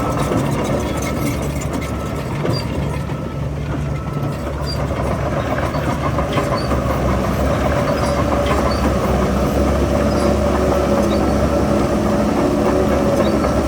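Heavy earthmoving machine's diesel engine running steadily, dipping slightly a few seconds in, with a few faint clicks.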